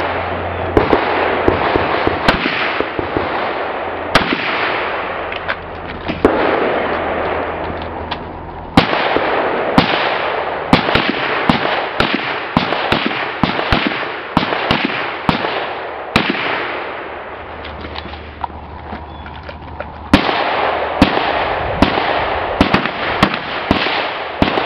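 Rifle fire at a shooting competition: many sharp shots from several rifles at irregular intervals, sometimes several a second, over a steady rushing noise.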